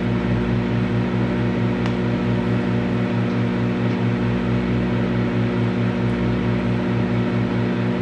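Microwave oven running: a steady low electrical hum over the whir of its fan, with a faint click about two seconds in.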